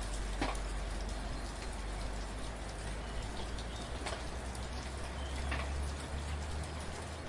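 Steady soft rain, a continuous patter with individual drops ticking now and then, a few louder ones about half a second, four seconds and five and a half seconds in.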